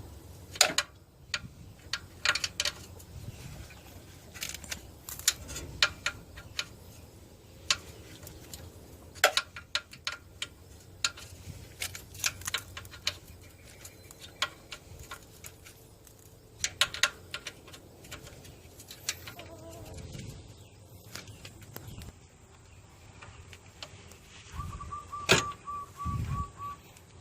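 Scattered sharp metallic clicks and clinks, irregular and at moderate level, as of hand tools and metal parts being handled. Near the end comes a short high warbling tone.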